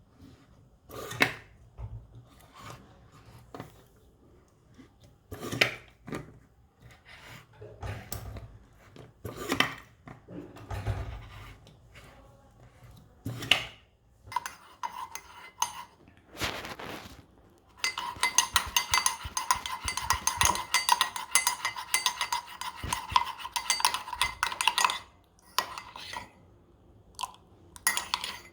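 Kitchenware knocking and clinking as coffee is made: scattered separate knocks and clinks, then a stretch of rapid, continuous ringing clinks lasting about seven seconds, and a few more knocks near the end.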